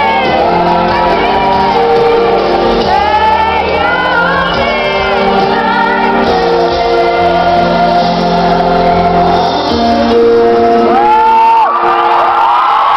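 Live pop ballad: a female singer's voice over sustained keyboard chords, sliding between notes and landing on a long held high note near the end.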